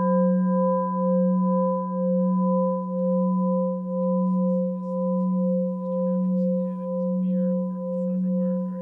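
A singing bowl rings on after a single strike, its deep tone and a few higher overtones sustaining with a slow, steady pulsing wobble and fading only slightly.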